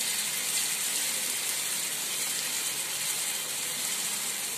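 Steady sizzling of a thin amaranth-flour and grated-potato batter frying in hot oil on a tawa while a spoon spreads it out.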